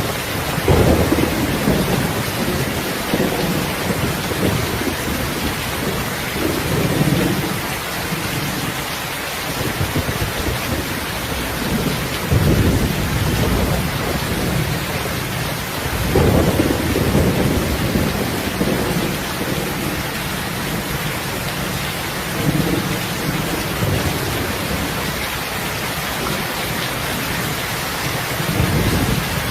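Steady rain with low rolls of thunder, which swell up and fade about six times, every four to six seconds.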